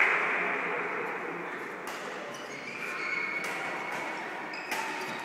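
Badminton rackets striking shuttlecocks, a few sharp hits echoing in a large sports hall over a murmur of voices.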